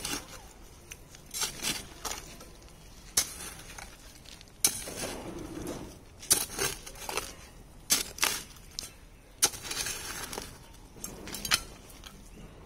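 A short-handled hand hoe chopping into stony red soil to dig out palmyra tubers: about a dozen sharp strikes at an uneven pace, with earth and small stones scraping and clinking between them.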